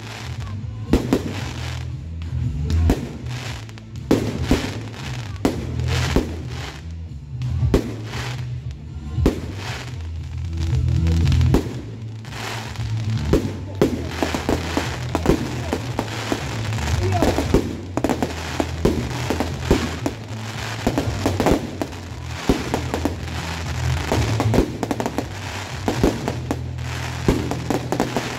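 Aerial fireworks shells bursting and crackling one after another, coming more thickly in the second half, with music playing underneath.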